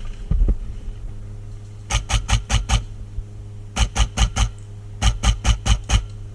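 Airsoft gun firing quick semi-automatic shots close by, in three strings of about five shots each, roughly five shots a second.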